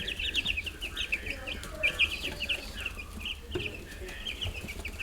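A brood of week-old meat chicks peeping continuously, many short high cheeps overlapping one another.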